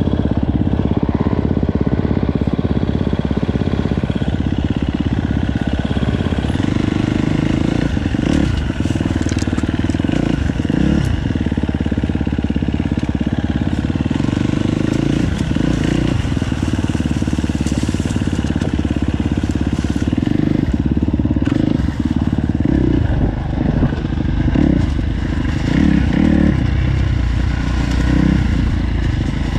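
KTM four-stroke motorcycle engine running under way, its note dipping and coming back up several times through the ride.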